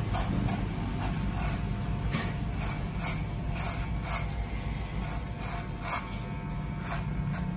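Electric hair clipper fitted with a No. 1.5 guard comb, its motor humming steadily. Short rasps come about once or twice a second as the guarded blade is pushed up through the hair.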